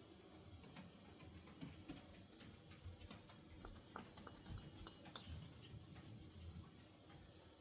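Faint, irregular light clicks and ticks over a low hum, as the Hampton Bay Quick Connect ceiling fan is handled to check its bearings.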